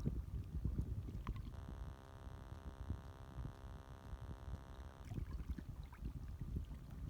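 Light waves lapping against a shore, with irregular small splashes and clicks over a low, rumbling wash of water and wind on the microphone.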